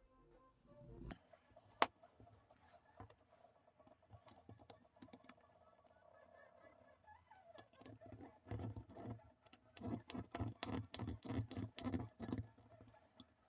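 Workshop hand work: a single sharp click about two seconds in, then a run of regular back-and-forth strokes, about three a second, from roughly eight seconds in until shortly before the end.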